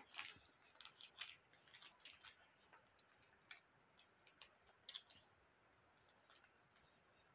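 Faint, crisp clicks and crackles at irregular intervals, a few to the second: someone chewing crispy fried chicken close to the microphone.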